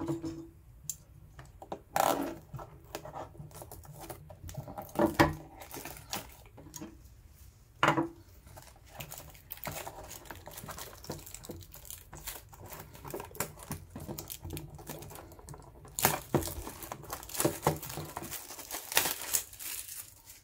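Plastic shrink wrap being torn and crinkled off a cardboard trading-card blaster box, mixed with sharp taps and knocks as the box is handled. The crinkling is densest and longest near the end.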